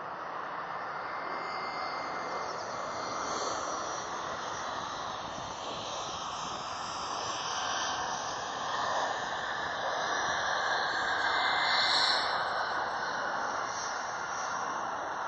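Jet airliner engine noise, a steady rushing sound that grows louder to a peak about twelve seconds in, then eases slightly.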